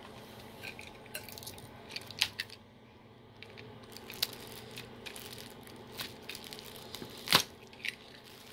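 Clear plastic wrapping around a hard plastic hooded hair dryer being handled, crinkling softly, with a few sharp clicks and taps against the plastic. The loudest tap comes about seven seconds in.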